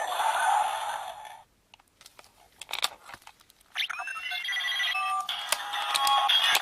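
Electronic sound effects from a Zyuoh Changer Final toy's small speaker: a dense noisy effect that stops about a second and a half in, a few sharp clicks, then a beeping electronic jingle of steady tones starting with a quick sweep.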